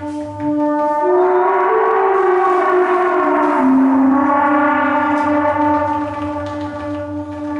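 Metal sound sculptures played together in a musical improvisation: sustained, gong-like metallic ringing tones that swell about a second in into a loud shimmering wash, its pitches bending down and back up before easing off near the end.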